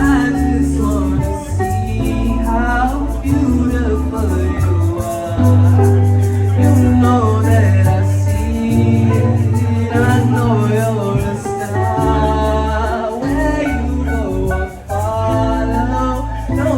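Latin-style song: a singing voice over a strong bass line.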